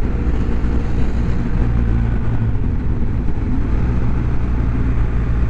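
BMW R1200GSA's boxer-twin engine running steadily at cruising speed, with road and wind noise.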